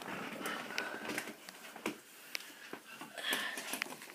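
Light clicks and knocks from handling a plastic toy drone and its base, a few separate taps over a faint rustle.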